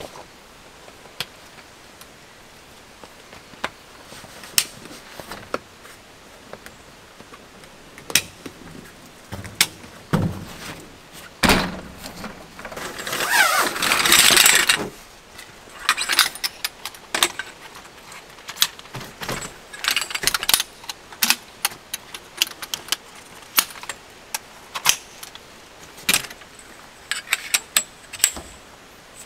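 Camping gear being set up by hand: scattered light metal clicks and clinks from a folding cot frame, table and tent poles, with nylon fabric rustling. About halfway through comes a longer, louder rustle and slide of a nylon stuff sack being handled.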